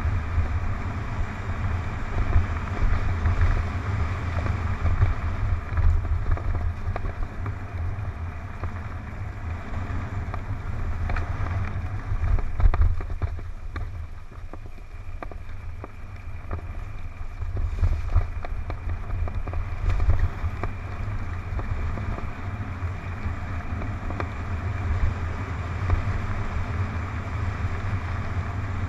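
Wind buffeting a helmet-mounted camera's microphone during a fast mountain-bike descent on a dirt trail, over the rumble of the tyres and the knocks and rattles of the bike on bumps. It eases off for a few seconds about halfway through, with harder knocks a little before and after.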